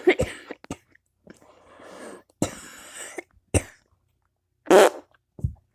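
A person coughing: a string of short, separate coughs with gaps between them, the loudest a little before the end.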